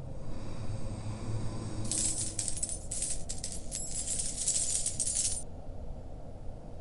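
A heap of coins shifting and jingling: a rapid run of small metallic clinks starts about two seconds in and stops about three and a half seconds later, over a steady deep rumble.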